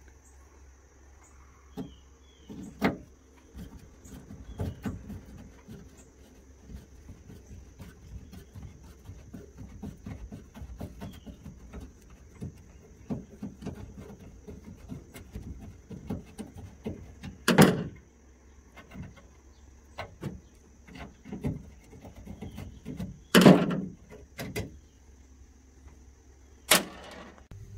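Hand screwdriver turning screws into small metal hinges on a plywood seat lid in an aluminium boat: a run of small scraping clicks, with four loud knocks along the way.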